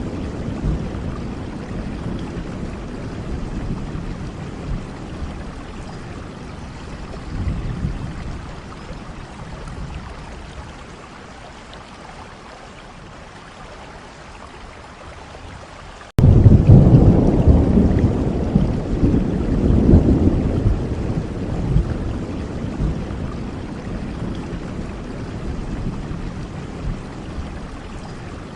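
Steady rain with rolling thunder. One long rumble fades away over the first half; about halfway through, after a brief dropout, a louder rumble starts abruptly and then slowly dies down.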